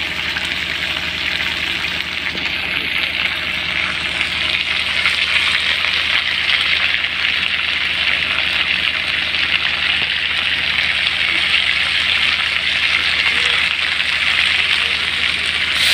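Masala-coated fish pieces frying in a large iron kadhai: a steady, loud sizzle with fine crackling.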